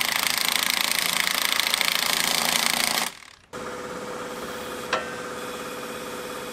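Impact wrench hammering on lug nuts, a loud, fast, even rattle that runs about three seconds and stops. After a short break a quieter steady machine hum follows, with a single click about five seconds in.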